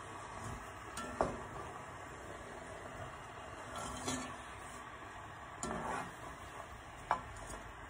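Wooden spatula stirring food in a stone-coated cooking pot, scraping and knocking against the pot a few times, over a steady faint hiss from the pot.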